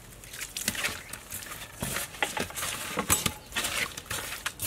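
Hands scrubbing whole fish with coarse salt in a metal basin: irregular gritty scraping and small knocks.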